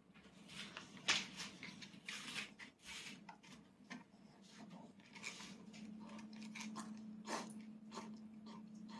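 A toddler eating: irregular light clicks and scrapes of a fork in a rice bowl, with soft chewing. The sharpest click comes about a second in, and a faint steady low hum comes in about halfway through.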